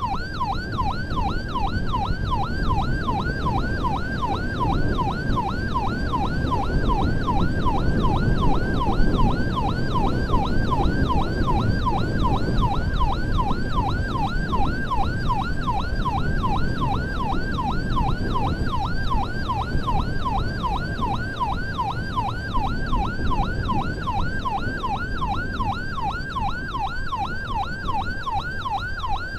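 Ambulance siren on a fast yelp, sweeping up and down in pitch about three times a second without a break, over the steady rumble of the vehicle on the road.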